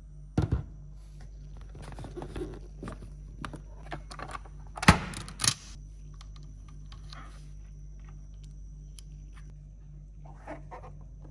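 Scattered sharp clicks and knocks over a steady low hum, the loudest pair about five seconds in.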